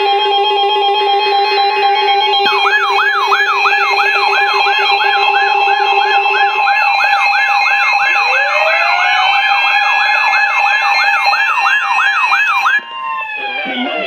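Several NOAA weather radios sounding their alert alarms together for a flood warning: overlapping steady beeping tones, joined a couple of seconds in by a warbling tone that repeats about twice a second, and by a rising whoop near the middle. Most of the alarms cut off together near the end.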